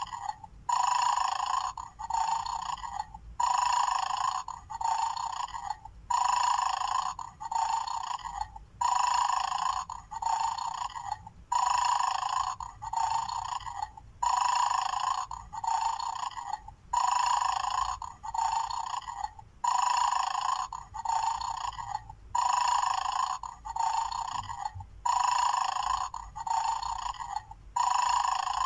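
Mad Dog bone-stealing toy playing its electronic snoring sound through a small tinny speaker: a recorded dog's snore, in then out, repeating about every three seconds. This sleeping-dog loop is the game's idle state, which plays until a bone is lifted and the dog wakes and barks.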